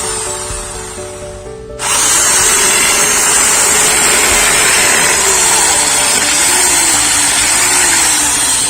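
Electric drill with a 3 mm bit boring into a wall. It winds down, starts again about two seconds in, and then runs steadily under load.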